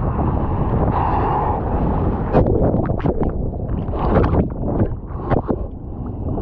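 Breaking whitewash rushing over a surfboard, heard through a GoPro housing's microphone, with sharp splashes of water hitting the camera through the middle. The sound dulls as the camera is dunked under the foam.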